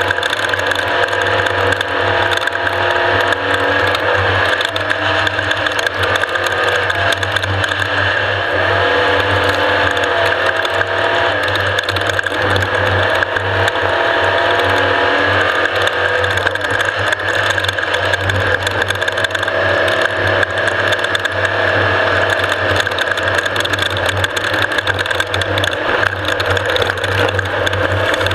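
Off-road race vehicle running hard, its engine pitch rising and falling with the revs under a constant dense rattling and clatter.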